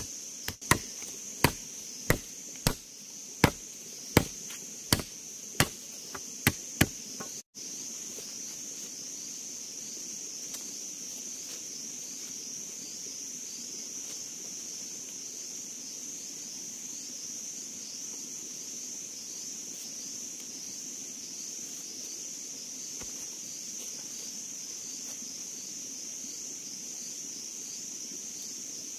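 A machete chopping into a wooden stick, about ten sharp strokes roughly one every two-thirds of a second, stopping about seven seconds in. Insects keep up a steady high-pitched drone throughout.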